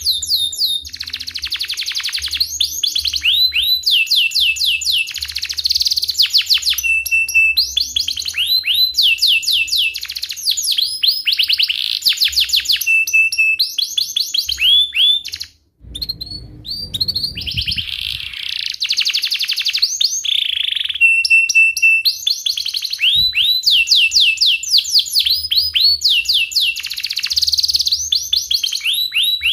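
Domestic canary singing a long, chattering song of rapid repeated chirps and rolling trills, with a brief break and a low rumble about halfway through.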